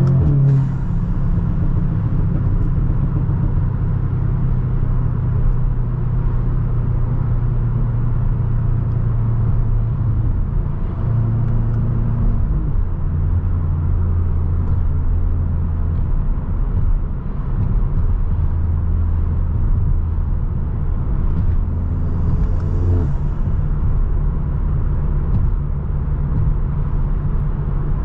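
Stage 2-tuned Audi S3 8V's turbocharged 2.0-litre four-cylinder engine running at a steady cruise, a continuous low drone. Its pitch drops with a gear change at the very start, and near the end the revs climb briefly and fall again with another shift.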